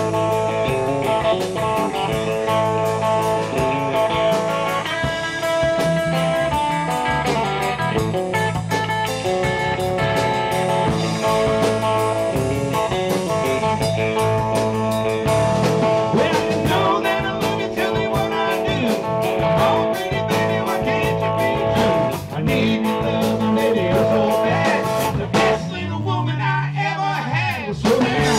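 A live band playing a blues-flavoured rock-and-roll number on electric guitar, electric bass and drum kit, with held and bent guitar notes.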